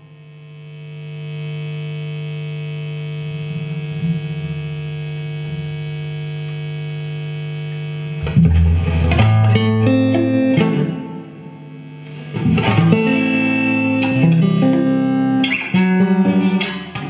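Electric guitar played through a Marshall JVM410 valve amp with some distortion: a note swells in and is held for about eight seconds, then a run of picked notes and short riffs follows.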